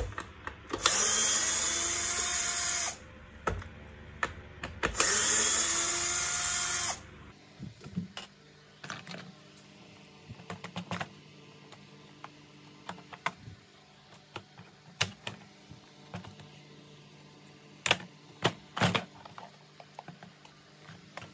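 Cordless screwdriver with a Torx 20 bit run twice for about two seconds each, spinning up and winding down as it backs out screws from a vacuum cleaner's plastic housing. After that come scattered clicks and knocks of plastic parts being pulled apart, sped up to double speed.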